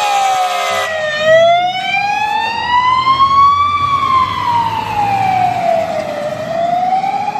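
Fire engine siren wailing in slow sweeps, rising and falling in pitch over several seconds each. It opens with a steady horn blast in the first second, and the truck's engine rumbles underneath.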